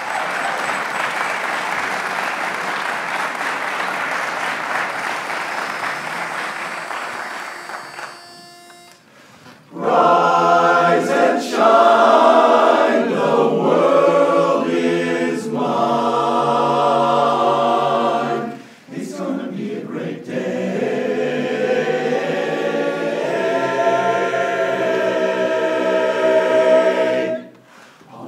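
Audience applause for about eight seconds, dying away. After a brief single held note, a men's barbershop chorus begins singing a cappella in close harmony, phrase by phrase, with short breaks between phrases.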